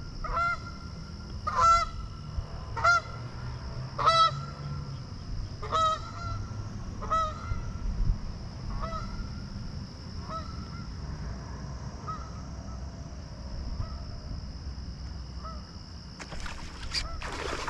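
A goose honking: a string of single honks about one to one and a half seconds apart, loud at first, then fainter and farther apart after about eight seconds.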